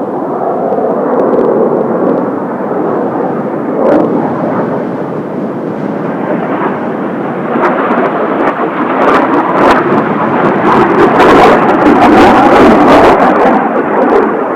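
Jet noise from Blue Impulse Kawasaki T-4 trainers, a steady rushing roar that swells over the second half to its loudest near the end, with a rough crackle as it peaks. Strong wind adds to the noise on the microphone.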